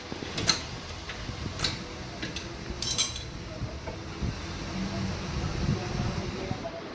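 Metal tools and parts clinking against each other, about four sharp clinks in the first three seconds, over a steady low rumble.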